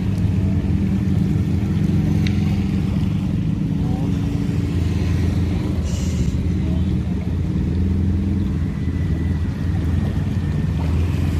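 Road traffic: a steady low engine rumble from motor vehicles driving along the road.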